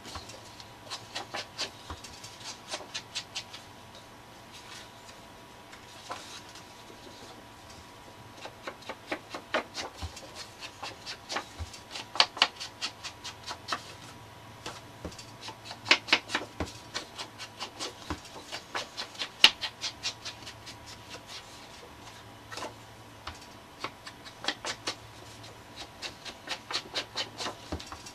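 Distress ink pad being swiped quickly along the edges of cardstock tags: rapid dry scuffing strokes, several a second, in bursts with short pauses.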